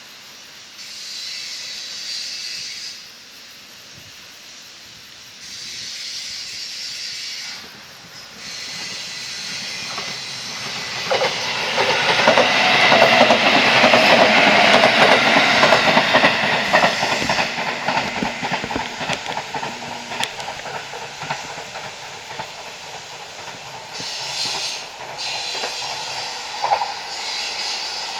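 A JR Kyushu electric train passes at speed on the Sasebo Line, building up over a few seconds, wheels clattering rapidly over rail joints, then fading away.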